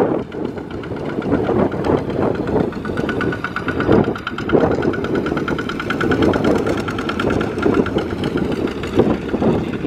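Two-wheel walking tractor's single-cylinder diesel engine running under load as it hauls a loaded trailer, a steady rapid train of firing pulses with a few brief louder surges.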